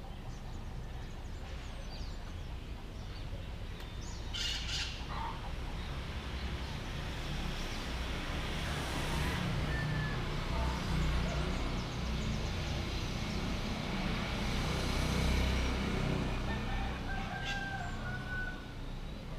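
Roosters crowing, with small birds chirping, over a low rumble that grows louder through the middle and eases off near the end.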